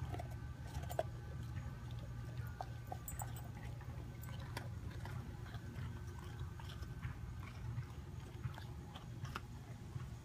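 A dog licking and chewing small pieces of a frozen dog treat off a cushion: many small, irregular wet clicks and smacks over a steady low hum.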